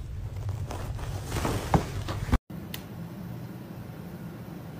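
A kitten's low, rumbling growl with a brief loud sound about two seconds in. After a sudden cut, a steady low hum follows.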